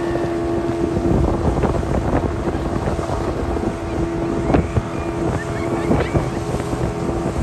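Motorboat engine running with heavy wind buffeting the microphone and water splashing. A steady drone fades out about five seconds in.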